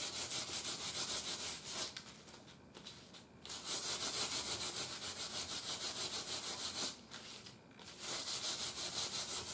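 Fine steel wool scrubbed rapidly back and forth over a corroded radio bezel, about five scratchy strokes a second, with two short pauses, to buff the corrosion off.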